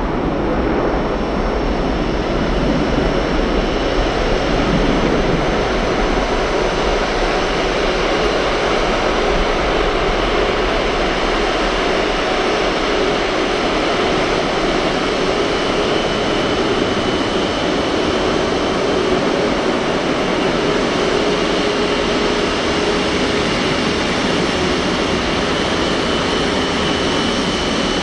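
Airbus A350-941 jet engines (Rolls-Royce Trent XWB turbofans) running: a steady, loud jet roar with a thin whine held at fixed pitch that grows plainer in the second half.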